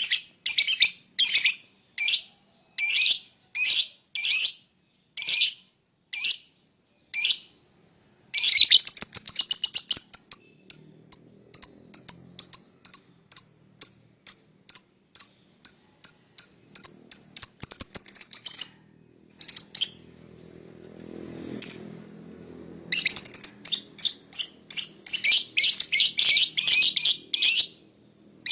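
Lovebird chirping: single sharp, high-pitched chirps about one a second at first, then from about eight seconds in a fast run of chirps several a second lasting about ten seconds. After a short pause, another fast run comes near the end.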